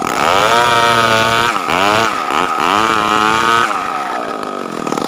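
Two-stroke chainsaw running at high revs. Its pitch sags and recovers several times in the middle, as it does under load in a cut, then drops off to a lower, rougher running near the end as the throttle is released.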